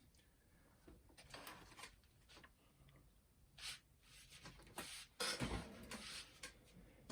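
Faint handling noises as a plastic part is fitted back onto a boombox cassette mechanism: scattered light clicks and rubbing, with a louder rustle about five seconds in.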